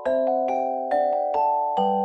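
Background music: a gentle melody of struck, ringing notes, a new note about every half second, each fading away.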